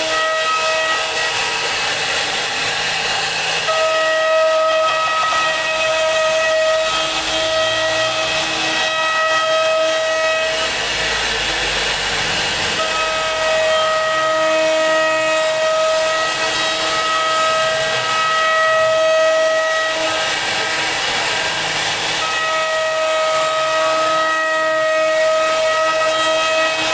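CNC router's high-speed spindle running with a steady high whine over a constant hiss. The whine drops out for a couple of seconds three times, about a second, ten seconds and twenty seconds in, then comes back while the hiss carries on.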